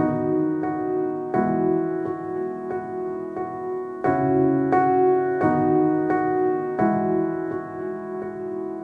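Background music: a piano playing slow, held chords, with a new chord struck about every second and a half.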